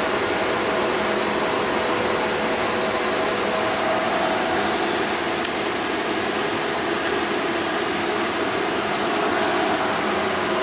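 Bullard Cutmaster 42-inch vertical turret lathe running with its table turning: a steady whir of motor and gearing that holds an even speed. Two faint ticks come in the middle.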